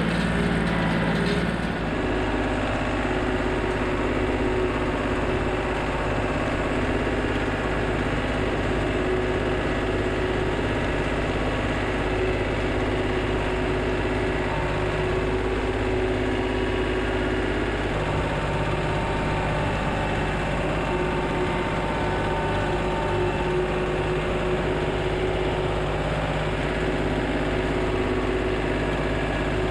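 John Deere compact tractor engine running steadily while pulling hay equipment through the field; the sound changes about two seconds in.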